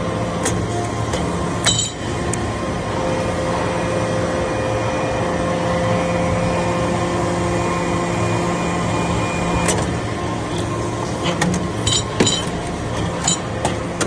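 Hydraulic metal-chip briquetting press running with a steady hum and several whining tones from its hydraulic drive while it compresses copper chips. A sharp ringing metallic clink comes about two seconds in, and a quick run of metallic clinks and knocks follows over the last few seconds.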